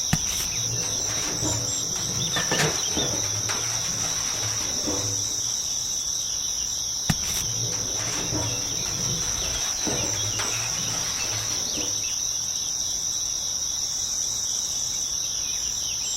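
Steady high-pitched chirring of insects, a cricket or cicada chorus, with a few faint knocks.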